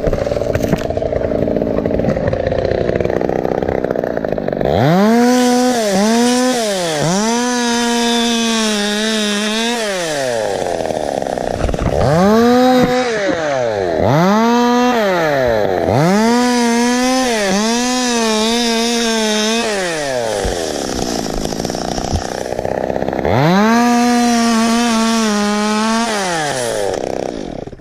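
Stihl 200T two-stroke top-handle chainsaw cutting palm fronds. It runs steadily for the first few seconds, then opens up to full throttle about seven times, each burst climbing to a high, held whine and dropping back between cuts.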